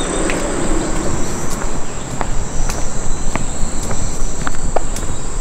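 Insects shrilling steadily in one high, even tone, with scattered footsteps and light clicks.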